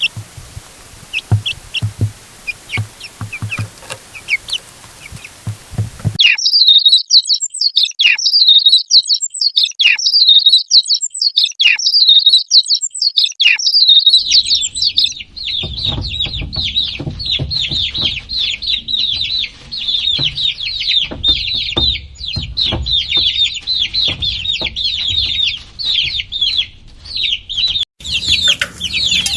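Baby chicks peeping. Scattered cheeps over low thumps come first. About six seconds in, loud single peeps start, each falling in pitch and repeated quickly. About fourteen seconds in, many chicks peep together in a dense, continuous chorus.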